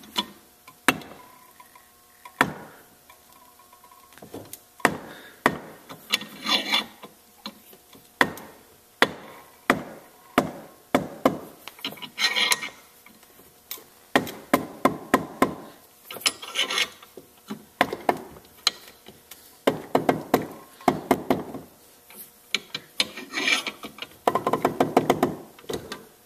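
Bench vise being slowly cranked down to press a new sealed bearing into a mower deck spindle hub: repeated creaks and squeals from the straining screw and the bearing pushed into the bore, in bursts every second or two, with sharp metallic clicks in between.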